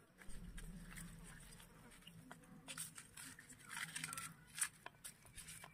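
A flying insect buzzing close by, a steady low drone that holds for almost the whole stretch, with scattered small clicks and taps around it.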